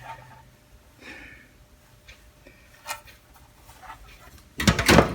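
Steel toolbox being handled: a faint click about three seconds in, then a loud clatter of metal near the end.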